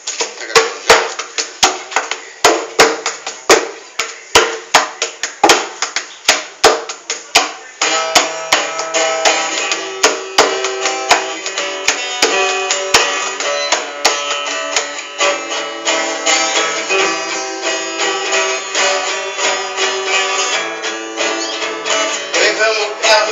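Acoustic guitars strummed in an instrumental introduction. Sharp, separate strokes come about twice a second for the first eight seconds, then give way to fuller, continuous strumming with ringing chords.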